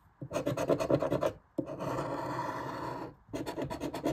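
A coin scratching the coating off a lottery scratch-off ticket in quick repeated strokes, in three spells with two short breaks between them.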